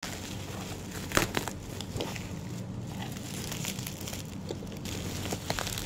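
Plastic bubble wrap crinkling and crackling as hands handle and unwrap it from a cardboard parcel, with the sharpest crackle about a second in.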